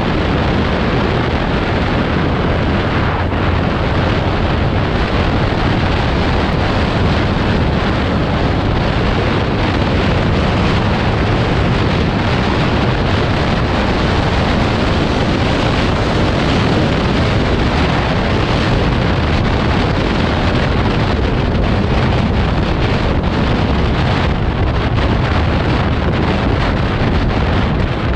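Steady, loud wind rushing over the microphone of a moving vehicle, mixed with road and engine noise.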